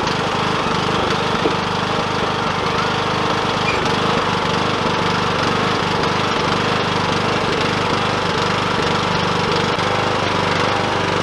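Riding lawn mower engine running steadily with an even, unchanging note, as the mower sits stuck in mud during an attempt to tow it out.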